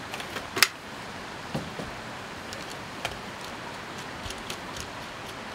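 Break-action muzzleloading rifle being handled and opened at the breech: one sharp metallic click about half a second in, then a few lighter clicks and knocks.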